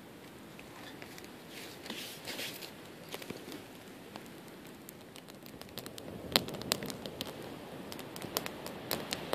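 Small campfire of dry grass and twigs burning, crackling with scattered sharp pops that come thicker and louder in the second half.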